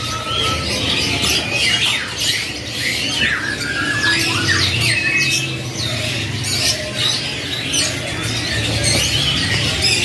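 Many caged canaries chirping and calling at once: a dense, overlapping chatter of short rising and falling notes and brief whistles.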